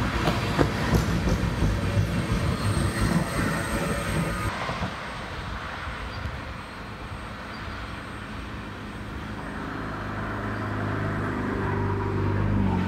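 Freight train of tank cars rolling past below, a loud rumble with scattered clicks and knocks from the wheels on the rails. About four and a half seconds in the sound changes abruptly to a quieter, steady rumble, with an engine hum growing louder near the end.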